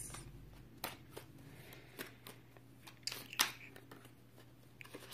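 A deck of tarot cards being shuffled by hand: faint, irregular flicks and rustles of the cards, loudest a little past three seconds in.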